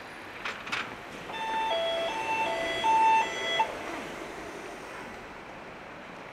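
An electronic chime plays a short tune of about seven notes, stepping back and forth between a higher and a lower pitch for about two seconds, over steady background noise. Two short clicks come just before it.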